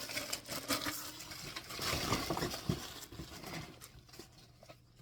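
Packaging rustling with small knocks and clatters as leaf-blower parts are pulled out of their box, busy at first and dying down after about three and a half seconds.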